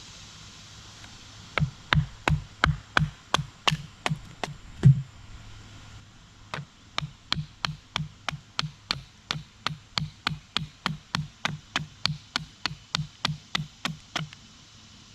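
Batoning a decayed maple branch: a wooden baton strikes the back of a blade again and again to split the wood, a steady run of knocks about three a second. The knocks stop briefly about five seconds in, after the loudest strike, then start again and go on until near the end.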